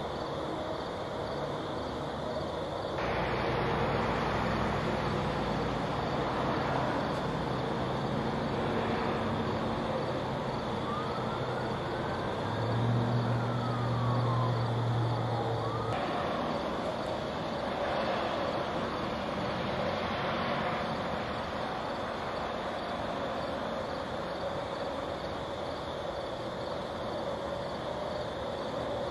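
Road traffic noise. A vehicle's steady noise swells about 3 seconds in and drops away abruptly near the middle, with a low engine drone just before it stops and a faint whine that rises and falls.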